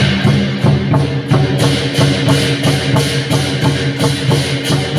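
Lion-dance drum, gong and cymbals playing a steady beat, about three strokes a second, with the gong ringing on underneath.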